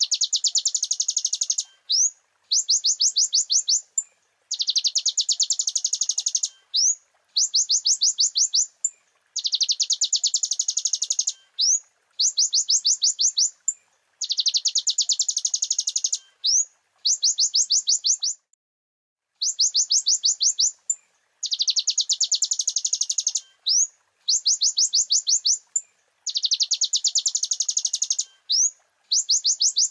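Kolibri ninja (sunbird) singing: high, very fast trills, each phrase about one to two seconds long, repeated over and over with short gaps and single quick up-slurred notes between them.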